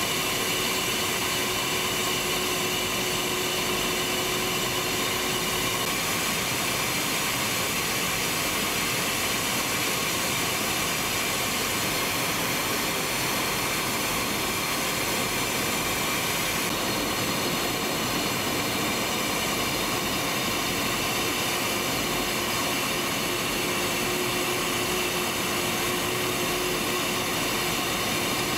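Steady cockpit noise inside a Tornado GR4 in flight: hiss from its twin RB199 turbofan engines and the airflow, with a few faint steady whining tones that change slightly about six and seventeen seconds in.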